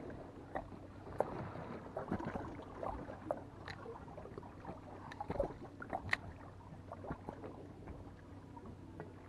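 Small waves lapping and slapping against the hull of a boat sitting on the water, with scattered light splashes and knocks.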